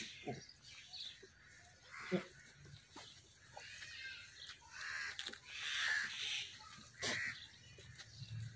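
A mother goat licking her wet newborn kids, with a couple of short low goat calls in the first two seconds. Harsher, higher-pitched calls come in the background around the middle, with a sharp sound near the end.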